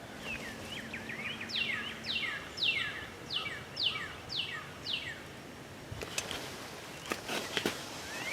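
A songbird singing a run of clear whistled notes, each sliding downward in pitch, about two a second for several seconds. A few faint clicks follow near the end.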